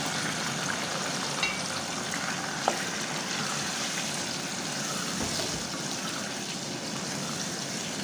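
Freshly added mutton liver pieces sizzling in hot oil and spices in a saucepan, a steady wet frying hiss, as they are stirred with a wooden spoon. A couple of sharp knocks of the spoon against the pan, the louder one about two and a half seconds in.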